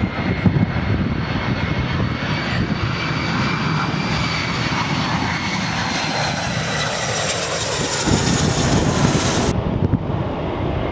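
Boeing 757 freighter's twin jet engines on final approach, passing close: a loud, steady jet whine over a rumble, with high tones that slide gently down in pitch as it goes by. About nine and a half seconds in, the sound cuts abruptly to a duller, lower rumble without the high whine.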